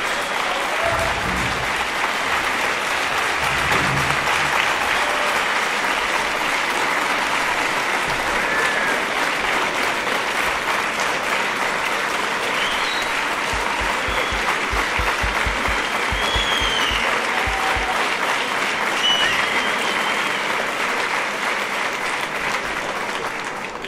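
A large audience applauding, steady and sustained for over twenty seconds, then tapering off near the end.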